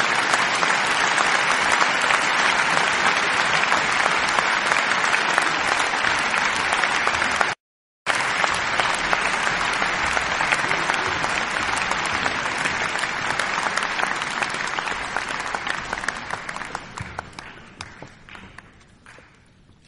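Crowd applause: many people clapping steadily. The applause cuts out abruptly for about half a second some seven and a half seconds in, then resumes and dies away over the last few seconds.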